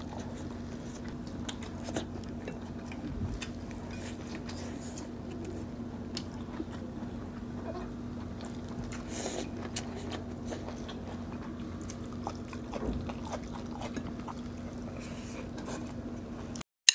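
Close-miked eating sounds: people biting and chewing sea grapes and grilled fish, with small scattered wet clicks and squishes over a faint steady hum. The sound cuts off abruptly just before the end.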